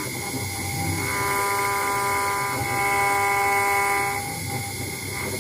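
CNC engraving router's spindle whining steadily while cutting a brass plate; its upper tones fade out and come back a few times as the cut changes.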